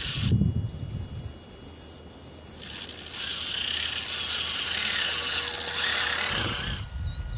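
Electric motor and gear drivetrain of a 1/24-scale Losi Micro Trail Trekker RC crawler truck whining as it crawls past, its tyres grinding and rasping over dirt and gravel. A few low thumps come right at the start.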